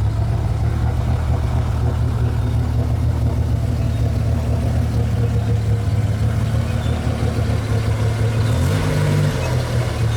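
Car engine running steadily with a low drone, its pitch rising briefly about eight and a half seconds in before settling back.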